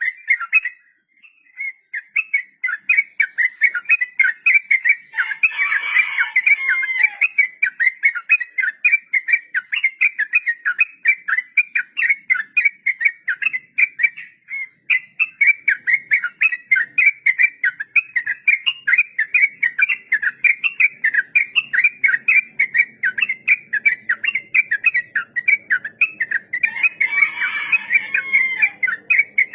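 Yellow-vented bulbul (trucukan) singing a long ropel: a rapid, steady run of short whistled notes, about four or five a second, with brief breaks about a second in and around the middle. Twice, about five seconds in and near the end, a fuller, harsher burst of chattering overlaps the run.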